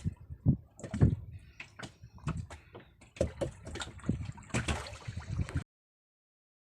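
Irregular knocks and bumps with water sloshing against a small fishing boat. The sound cuts off abruptly about a second before the end.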